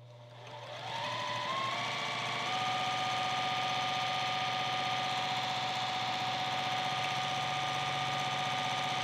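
Juki TL2010Q straight-stitch sewing machine starting up and speeding up over about two seconds, then stitching steadily at high speed through fabric.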